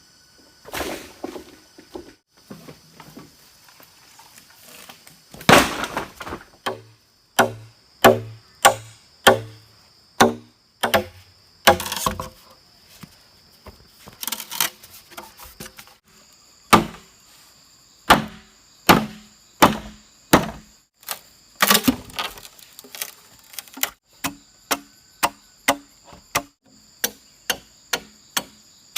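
Repeated chopping strikes with a blade, each a sharp crack. They come about one a second, then quicken to about two a second near the end.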